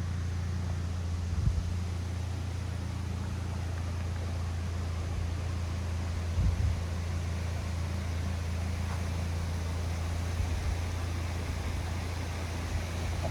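A steady low engine-like hum over a haze of noise, with a couple of brief low thumps.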